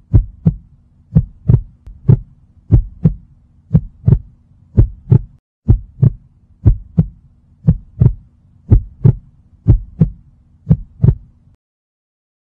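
Heartbeat sound effect: paired lub-dub thumps about once a second over a low hum, cutting off suddenly near the end.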